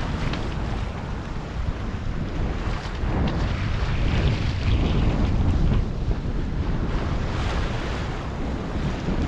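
Wind buffeting the microphone on a sailboat under way, with water rushing and splashing along the hull. The wind noise surges unevenly.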